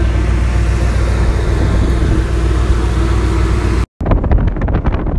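A motor yacht's engine drones steadily under the rush of water and wind. The sound cuts out briefly just before four seconds, and after that gusts of wind buffet the microphone.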